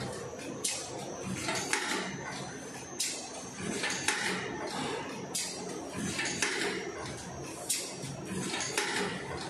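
Paper cake tray forming machine running: a steady mechanical running noise with a sharp metallic clack repeating about once a second, slightly unevenly.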